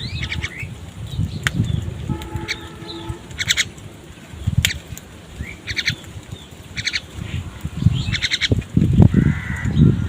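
Crows calling while squabbling over food: repeated short, rapidly pulsed calls, one longer drawn-out call about two seconds in, and heavy low thumps near the end.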